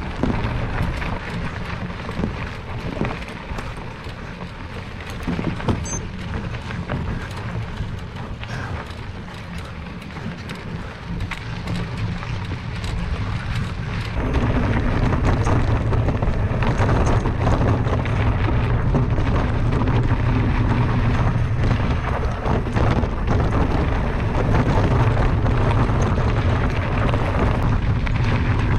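Wind buffeting the microphone over falling rain, a low rumble that gets louder about halfway through.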